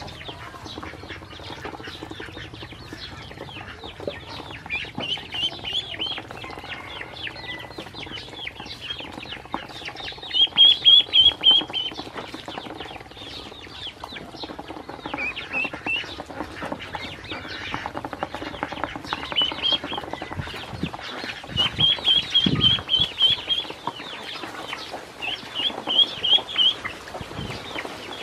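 A brood of ducklings peeping in short, fast runs of high calls, several times over, the loudest run about ten seconds in. Under the calls is a steady patter of small clicks and taps as their bills and feet work against the plastic tub and feed dish.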